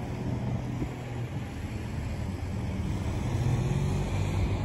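Diesel locomotive engine running out of sight, a steady low drone that grows slightly louder near the end.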